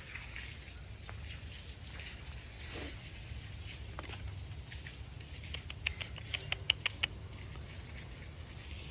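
A fox gnawing on a deer bone: a quick run of sharp, crunchy clicks from teeth on bone in the second half, over a low rumble of wind.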